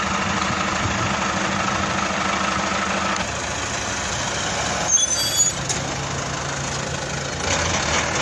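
Engine of a light flatbed truck running, its note shifting about three seconds in. A few short high squeaks and a click come about five seconds in.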